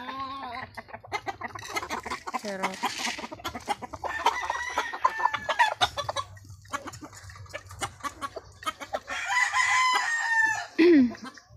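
Gamecocks (fighting roosters) crowing and clucking, with two long crows, one about four seconds in and another about nine seconds in. A short, loud call with a falling pitch comes near the end.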